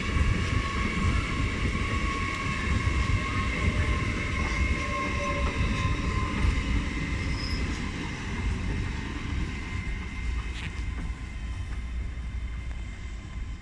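Class 802 bi-mode passenger train arriving and slowing past at close range: a steady rumble of wheels and bogies with a high, steady squeal. The sound eases off over the last few seconds as the train draws away down the platform to its stop.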